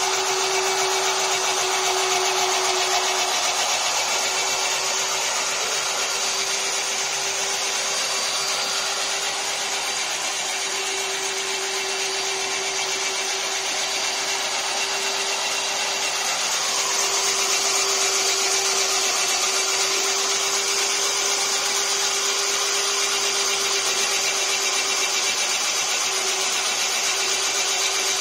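Belt-driven electric mini chaff cutter (toka) running steadily, its flywheel cutter chopping dry straw fed in by hand. There is a constant hum and a steady cutting noise, with no stops.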